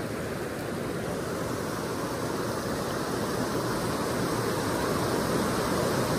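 Steady rush of river water spilling over a low weir and running through the riffle below it, an even noise that grows slightly louder towards the end.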